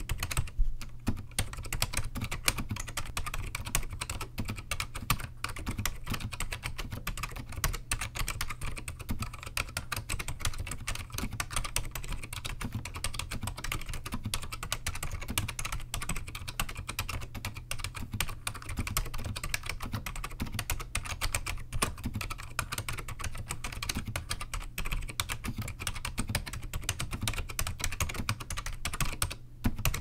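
Continuous typing on a Matias Dvorak Pro keyboard with Matias Quiet Click switches, which are dampened tactile Alps-style switches, under ABS keycaps. A dense, steady run of key clicks breaks off briefly just before the end, over a steady low hum.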